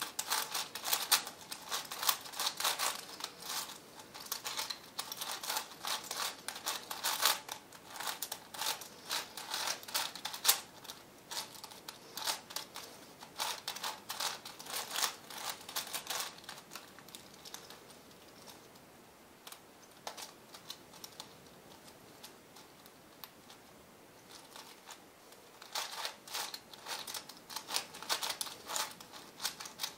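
V-Cube 7 (7x7x7 puzzle cube) being turned by hand: quick runs of plastic layers clicking and clacking as they rotate. The turning stops for several seconds past the middle, then picks up again near the end.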